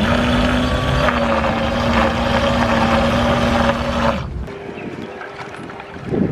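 Twin electric motors of an RC fishing bait boat running hard in the water: a steady motor hum with churning propeller wash. It cuts off about four seconds in.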